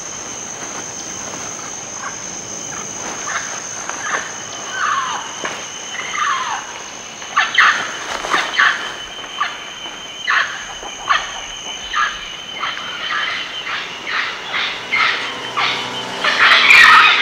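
Rainforest ambience: a steady high-pitched insect drone, with a few falling bird calls early on and then a run of short bird calls about one and a half a second apart from about halfway, growing louder near the end.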